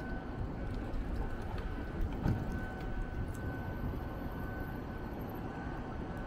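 City street ambience: a steady low rumble of traffic and the city, with a faint steady high whine and a few light clicks.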